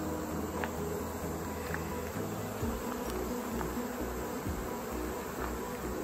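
A swarm of honeybees buzzing steadily, many wingbeats overlapping and shifting in pitch, as they gather to clean leftover honey off extracting gear and wax cappings.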